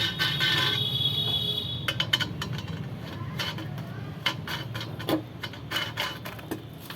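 Scattered metallic clicks and knocks of the weighing-scale's legs, pipes and bolts being handled and fitted to its platform, over a low steady hum. A steady high tone runs for about the first two seconds.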